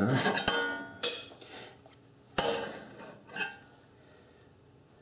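A steel rule and marking tool clanking and scraping against an upturned round metal pan: about five sharp metallic clanks, each ringing briefly, over the first three and a half seconds.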